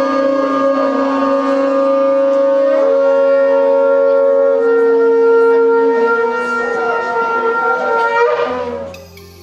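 Shofars blown together in long held blasts at several overlapping pitches. The horns drop out one after another, the last stopping about eight and a half seconds in, when soft music begins.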